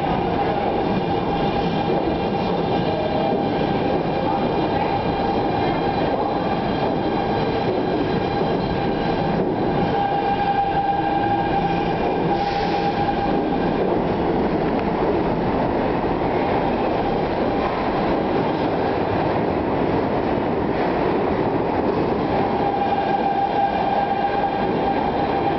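R160B subway train rolling into an underground station, its cars passing close by with a steady loud rumble of wheels on rail. A thin steady high-pitched tone runs through it, strongest about ten seconds in and again near the end.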